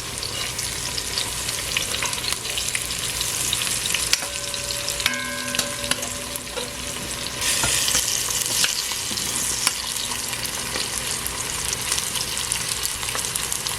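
Sliced okra frying in oil in a pot: a steady sizzle with scattered clicks of a spoon stirring against the pot. The sizzle grows louder about halfway through.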